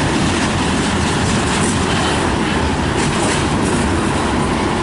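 Canadian National mixed freight train's cars rolling past, steel wheels running on the rails in a loud, steady rumble.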